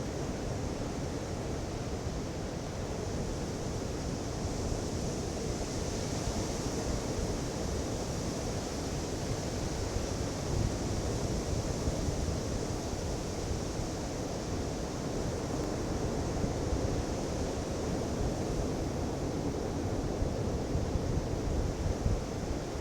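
Ocean surf breaking on a beach: a steady wash of waves with a low rumble and hiss that swells and eases gently, with some wind on the microphone.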